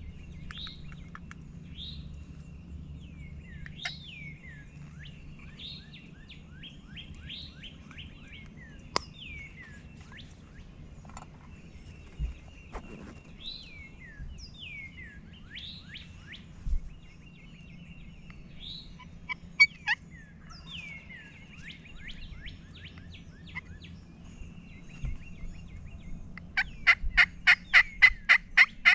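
Songbirds singing a dawn chorus of repeated down-slurred whistles and chirps. Near the end comes a loud, rapid series of turkey yelps, about six a second.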